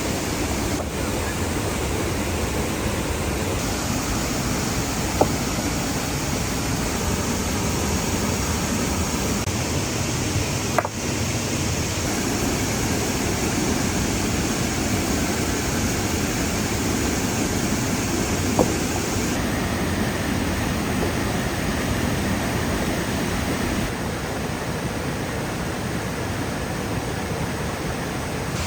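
Steady rush of a waterfall, with three single sharp knocks spread through it.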